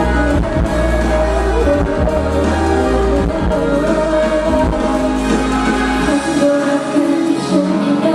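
Thai girl-group pop song performed live, with a female voice singing over the backing music. The deep bass drops out about six seconds in.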